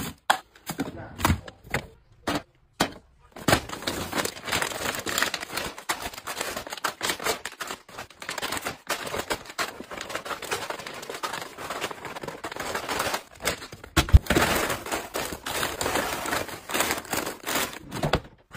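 A few sharp knocks and rustles as small cardboard boxes drop into a plastic-lined bin. Then, from a few seconds in, dense continuous crinkling of plastic snack packets being shaken out of a large plastic bag and handled, with one louder thump about fourteen seconds in.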